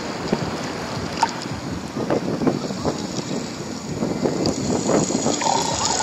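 Water splashing and sloshing in irregular bursts, with wind buffeting the microphone.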